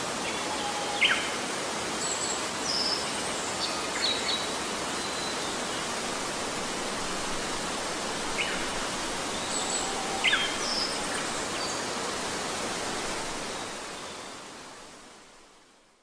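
Steady rushing of a waterfall or stream with birds chirping over it: short high whistles and chirps come in a cluster about a second in and the same cluster again around eight to ten seconds in. The sound fades out near the end.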